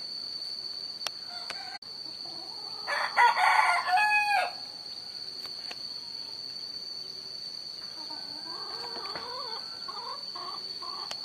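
A rooster crowing once, loudly, about three seconds in, ending on a held note that bends down. Softer wavering calls come near the end, over a steady high-pitched whine.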